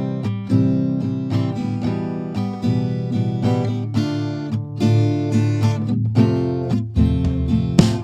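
Background music of strummed acoustic guitar, with chords struck every half second or so.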